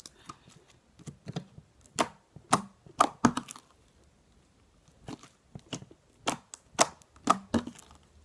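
Homemade galaxy-crunch slime with polystyrene micro-beads being squeezed and kneaded by hand, giving irregular sharp clicking pops as air pockets burst, in two clusters.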